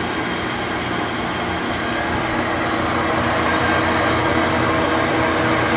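Fortuna universal grinder's main OD grinding-wheel motor running, the wheel spinning free without cutting: a steady, quiet hum and whir that grows slightly louder.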